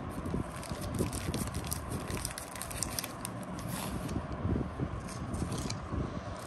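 A Match Attax trading-card packet being opened by hand: irregular crinkling and rustling of the wrapper, with the stack of cards scraping as it slides out.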